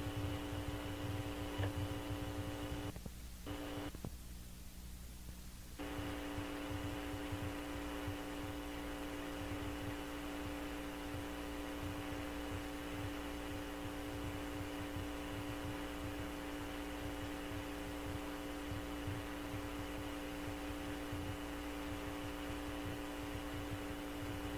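Steady electrical hum with a low throbbing rumble on an air traffic control radio recording. The hum cuts out briefly about three seconds in and again from about four to six seconds in.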